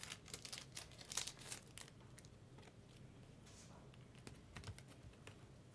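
Faint crinkling with a few light clicks, dying away to near silence after about two seconds.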